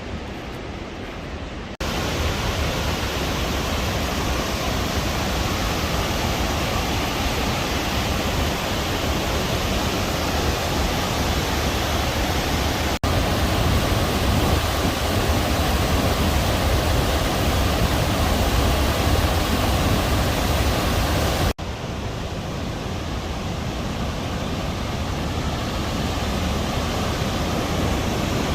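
Steady rush of fast-flowing river water, with the level jumping abruptly about 2, 13 and 21 seconds in.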